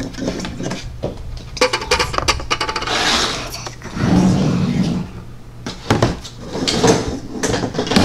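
Toy dishes and play food clattering and knocking on a tabletop as they are handled, a run of quick clicks and knocks that comes and goes.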